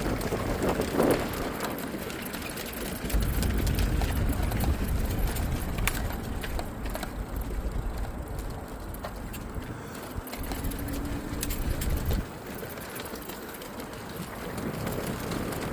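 Riding noise from a bike on a trail: wind buffeting the microphone and tyre rumble, swelling about three seconds in and cutting off abruptly about twelve seconds in, with scattered clicks.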